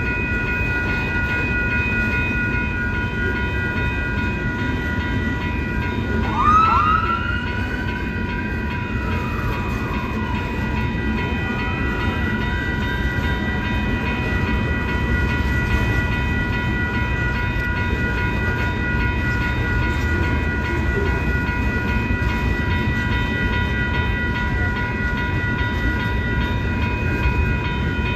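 Hopper cars of a slow Union Pacific rock train rolling through a grade crossing with a steady low rumble, under the continuous ringing of the crossing's warning bells. About six seconds in, a brief wailing tone rises and falls; it is the loudest sound, with a fainter one a few seconds later.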